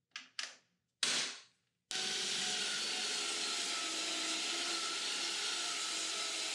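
Three short handling sounds, then about two seconds in a table saw running steadily as a sheet of BC sanded plywood is fed through it for a rip cut.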